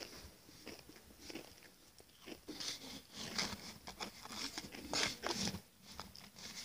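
Close-up chewing of a mouthful of two Pringles potato crisps at once: irregular crisp crunches, loudest about three and a half and five seconds in.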